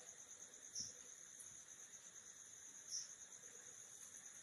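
Faint, steady high-pitched trilling of crickets, with two soft small taps, about a second in and about three seconds in.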